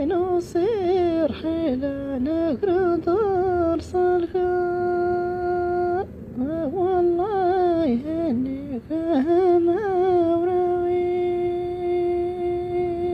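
Unaccompanied solo voice singing a heavily ornamented melody with no instrument behind it. It sings two phrases of quick turning runs, each ending on a long held note: the first breaks off about six seconds in, and the second holds on to the end.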